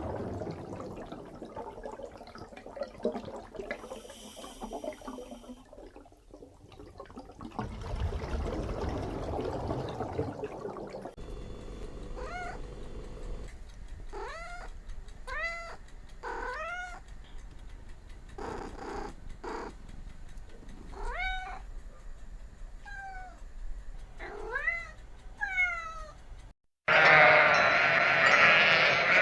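A cat meowing again and again, about a dozen short calls that each rise in pitch. Before the meows there is indistinct low noise, and near the end a loud, harsh sound cuts in.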